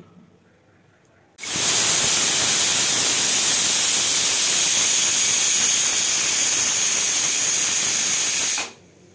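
Aluminium pressure cooker's weighted valve letting off a whistle of steam: a loud, steady hiss that starts suddenly about a second and a half in, lasts about seven seconds and cuts off sharply. It is the first whistle, the sign that the cooker has come up to full pressure on high flame.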